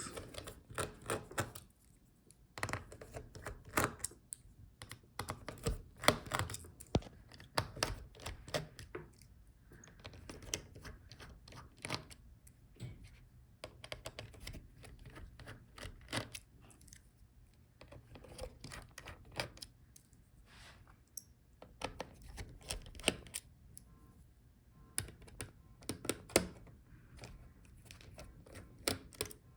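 Irregular small clicks and taps of a screwdriver working out tiny screws from a laptop motherboard, with the light clatter of screws and tool against the plastic and metal chassis.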